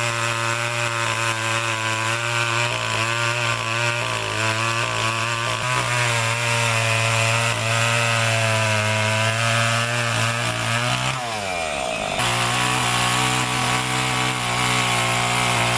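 Two-stroke chainsaw running at high revs, cutting into a wooden trunk. The engine note holds steady, drops about eleven seconds in, then picks up and runs on.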